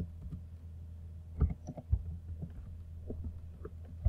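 Computer keyboard being typed on, a few soft, scattered keystrokes over a steady low hum.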